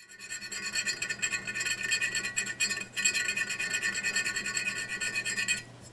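Small needle file rasping back and forth over cured Milliput epoxy putty and the hard porcelain of a figurine at a repaired break, a fast scratchy scraping with a high ringing note through it. The strokes stop shortly before the end.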